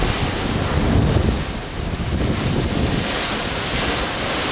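Wind buffeting the microphone in gusts over a steady rush of sea.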